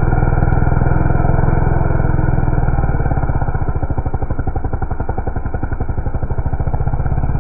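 McCulloch two-stroke chainsaw running steadily at high revs while cutting a log. The sound is dull, with no high end.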